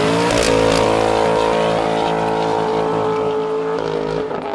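Corvette V8 held at high revs during a burnout, with the tyres spinning. The engine note stays steady for about three seconds, then eases off near the end.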